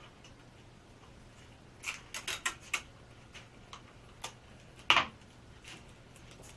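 Light handling clicks and taps at a workbench as a roll of tape is worked by hand: a quick run of clicks about two seconds in, then a sharper knock near five seconds as a small plastic item is set down on the table.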